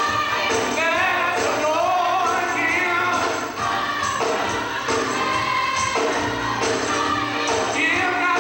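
Church choir singing a gospel song with accompaniment, over a steady percussive beat.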